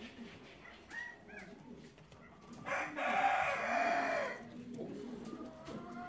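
A rooster crows once, a single call of a little under two seconds starting just before the halfway point. Fainter short bird calls are heard around it.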